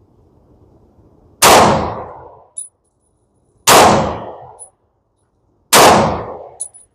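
Three pistol shots from an FN 510 Tactical 10mm firing 180-grain CCI Blazer, about two seconds apart, each ringing out over a second. A light tick follows each shot.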